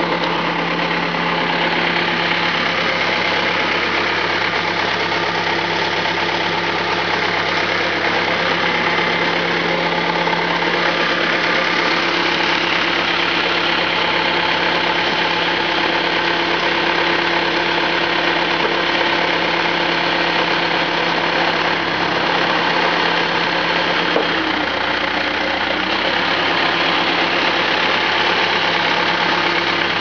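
Terex/Fermec backhoe loader's diesel engine idling steadily.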